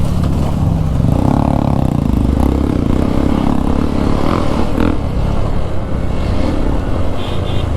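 Motorcycle engine running steadily under way, with some clatter over rough ground.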